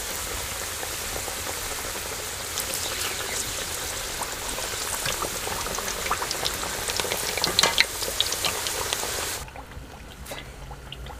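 Samosas deep-frying in hot oil: a steady sizzle full of sharp crackles and pops, getting busier toward the end. It cuts off suddenly about nine seconds in, leaving a quieter background.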